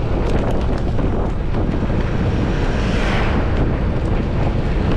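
Wind buffeting the microphone on a moving scooter, a steady rush with road and engine noise underneath. A brief hissing swell comes about three seconds in.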